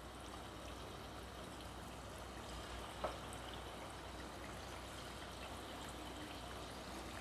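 Marinated boneless chicken pieces deep-frying in hot oil: a faint, steady sizzle of bubbling oil, with a single soft tap about three seconds in.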